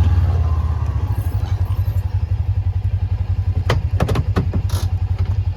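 A small engine running steadily with a low, fast pulse. A few sharp clicks and clatters come about four seconds in.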